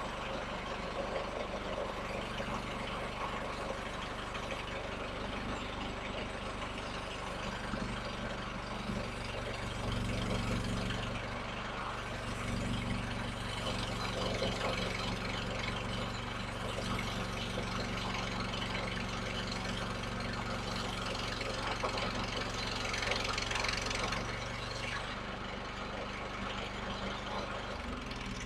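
Portable sawmill's gas engine running steadily, with the noisier, louder stretch in the middle as the blade cuts through a log. Near the end the engine is shut off and winds down.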